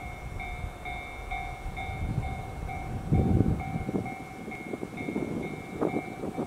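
Railway level-crossing warning bell ringing in an even repeating ding, about two strikes a second, as it does for an approaching train. Low wind rumble on the microphone underneath, with a strong gust about three seconds in.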